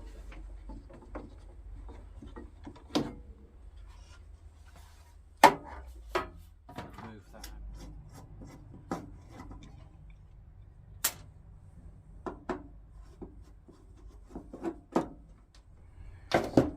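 Scattered knocks, clicks and clatters of metal and wood, with some rubbing, from hands working on a table saw as its riving knife is taken off. The sharpest knock comes about five seconds in.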